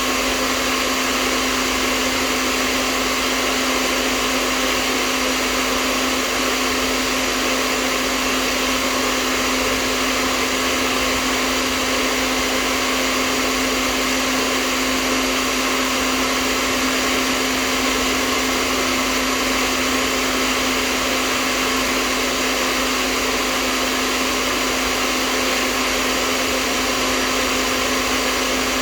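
Hair dryer running steadily: a constant rush of air over an even motor hum.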